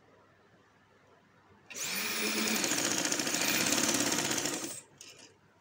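Yashica sewing machine starting up and running at speed for about three seconds, stitching a seam through the trouser fabric and lace with a rapid, even stitch rhythm and a high whine, then stopping abruptly.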